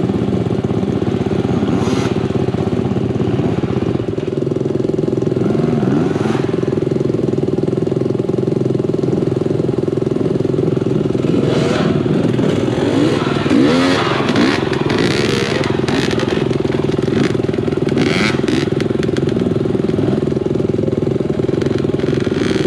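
Dirt bike engine running steadily, with its pitch sweeping up and down briefly about halfway through and some clatter in the second half.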